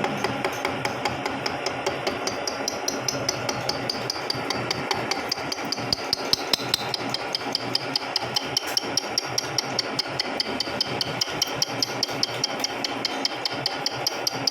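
Vertical milling machine cutting spur gear teeth: the gear cutter ticks rapidly and evenly, several strikes a second, over a steady high whine.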